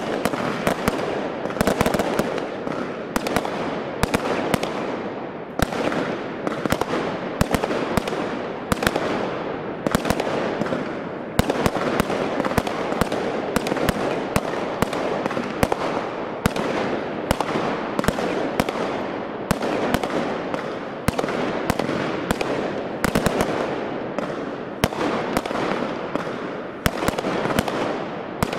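Consumer aerial fireworks going off in a continuous barrage: sharp bangs several times a second over a steady crackle of bursting stars, with no pause.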